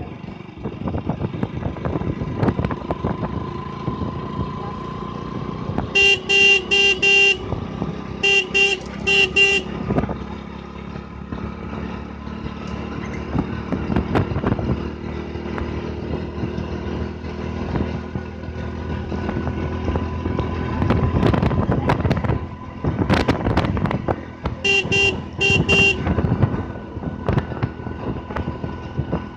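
Motorcycle engine running as the bike is ridden. A horn sounds in quick runs of short toots: two runs between about six and ten seconds in, and another a few seconds before the end.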